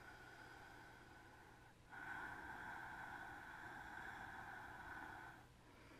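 Faint, slow breathing by a person holding a yoga pose: a soft hiss of breath that grows louder about two seconds in, holds for a few seconds, then eases off.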